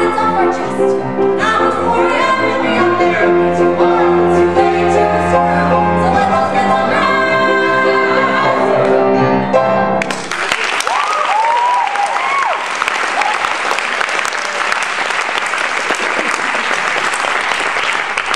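A man and a woman sing the final held notes of a musical-theatre duet over piano accompaniment, cutting off together about ten seconds in. An audience then applauds, with a few whoops early in the applause.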